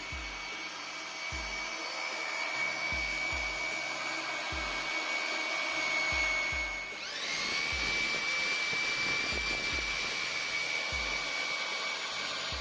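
Whine of a motor-driven garden power tool running steadily, its pitch dropping briefly about seven seconds in and quickly climbing back up, as when it takes a load. Low thumps recur underneath.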